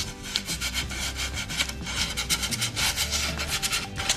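Fine sandpaper rubbed by hand along the edges and corners of an MDF board, in quick back-and-forth rasping strokes, to knock off the rough edges.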